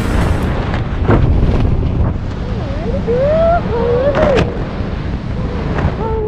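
Wind buffeting the camera's microphone during a tandem skydive under an open parachute: a loud, constant low rumble. From about two seconds in, a voice rises and falls faintly through the wind.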